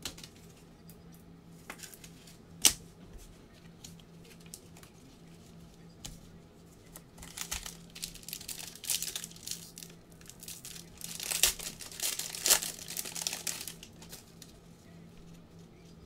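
A trading-card pack's shiny foil wrapper being torn open and crinkled by hand, in crackling stretches from about seven to fourteen seconds in, loudest around twelve seconds. A single sharp tap comes near three seconds in.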